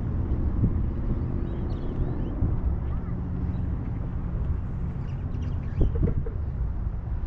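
Steady low rumble of wind on the microphone and road noise from a boat towed behind a vehicle, with the tow vehicle's engine droning underneath. A short clatter comes about six seconds in.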